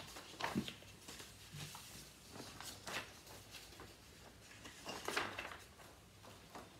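Sheets of paper music being handled: a few short rustles and soft knocks, the loudest about five seconds in.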